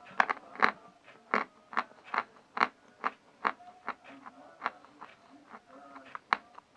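Dry crunches of a piece of natural chalk, the light grey Barsuk variety, being bitten and chewed close to the microphone, about two crunches a second at first and thinning out toward the end.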